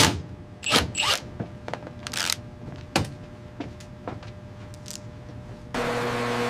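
Mechanical work sounds: scattered clicks and knocks with a few short hissing bursts. Near the end a steady machine hum starts abruptly.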